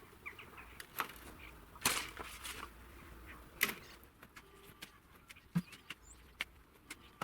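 Irregular knocks and clicks, three of them louder, with a few faint short bird chirps.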